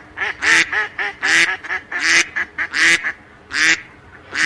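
A duck quacking in a quick run of about a dozen short quacks, two to three a second. It is most likely a recorded quack sound effect laid over the reveal of a toy duck.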